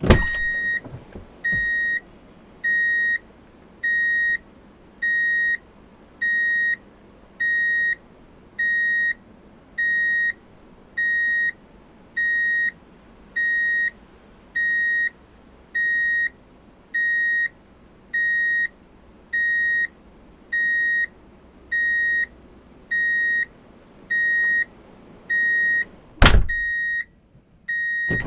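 A vehicle's reverse-gear warning beeper sounding one steady high beep a little more than once a second, over twenty times, then stopping. A loud thump follows near the end, and another at the very start.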